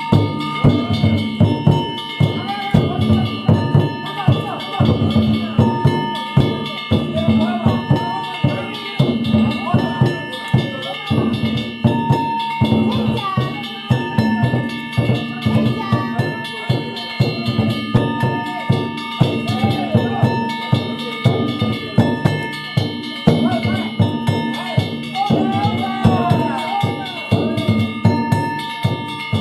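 Danjiri festival float music: small hand-held kane gongs ringing and a taiko drum beating in a fast, steady, unbroken rhythm.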